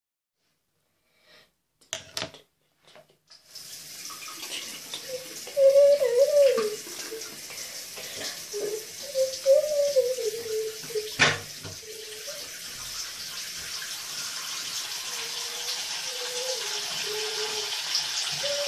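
Water running in a bathroom, starting about three and a half seconds in as a steady hiss that slowly grows louder. A wavering tone rises and falls over it at times, and there is one sharp knock near the middle.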